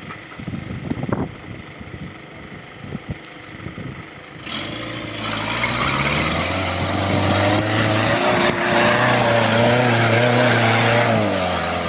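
Mahindra 4x4 off-roader's engine revving hard under load as it climbs a steep hill track, loud from about four and a half seconds in and holding a steady pitch before easing off near the end. Scattered low thumps before the engine comes up.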